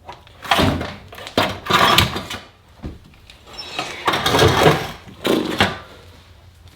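Things being handled and set down: four or five bursts of rustling and clatter, each opening with a sharp knock.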